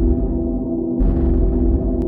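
Background ambient music: sustained low chords with a bright, gong-like shimmer that comes in again about a second in.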